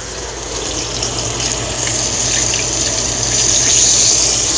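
Flour-dredged fish frying in hot oil: a steady sizzling hiss that swells louder about three to four seconds in.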